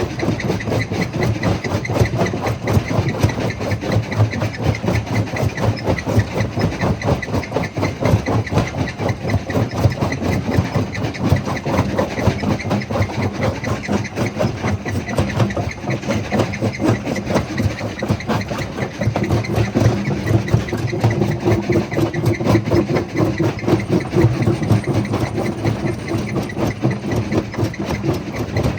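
Jaw crusher plant running: a loud, continuous mechanical rumble, with a steady hum joining about two-thirds of the way through.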